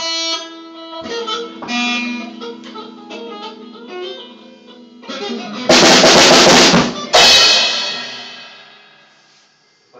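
Music: held, plucked guitar-like notes, then a loud crash of drums and cymbals about six seconds in, struck again just after, ringing out and fading away near the end.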